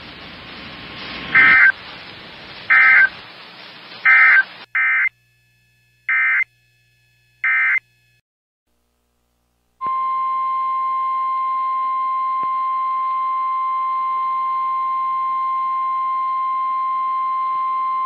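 Emergency Alert System SAME data bursts: three short buzzy bursts over faint radio hiss closing one alert, then three more that open the next. After about two seconds of silence, a steady single-pitched attention tone of the National Weather Service 1050 Hz kind sounds for about nine seconds.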